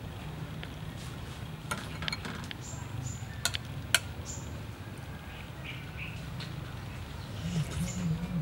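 A metal spoon clinks and scrapes against a plate and bowl several times as someone eats, the sharpest click about four seconds in. Short bird chirps sound in the background.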